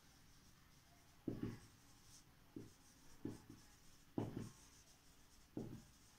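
Marker pen writing on a whiteboard: quiet, with about five short, separate strokes.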